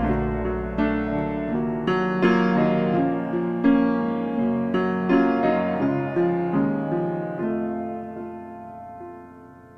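Background music: a slow piano passage of separate notes, each ringing and dying away, the whole fading out gradually.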